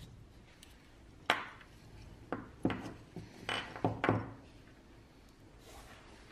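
Small restored clamp-on bench vise handled and set down on a worktable: a string of sharp metal knocks and clinks from its clamp screw, handle and body, bunched between about one and four seconds in.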